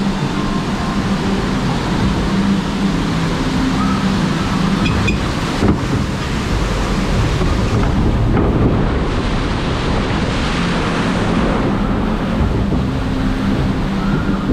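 Water rushing and splashing along a log flume channel around a moving ride boat, mixed with wind buffeting the microphone; the hiss of the water grows brighter for a few seconds in the middle.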